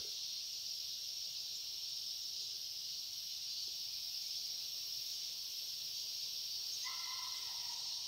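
Steady, high-pitched chorus of insects: a continuous even hiss with no breaks.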